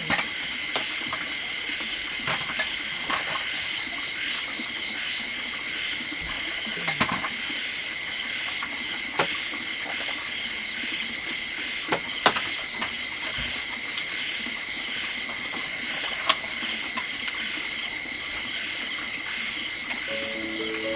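Steady chorus of insects, a finely pulsing high buzz, with a dozen or so sharp snaps and knocks scattered through it. Music comes in near the end.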